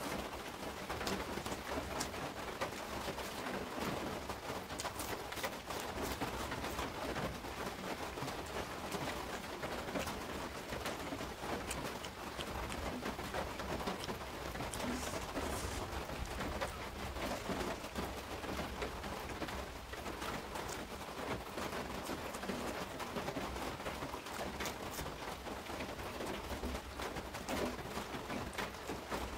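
Close-up eating sounds: fingers squishing and mixing rice, noodles and curry on a plate, and open-mouthed chewing, with many small clicks and smacks going on without a break.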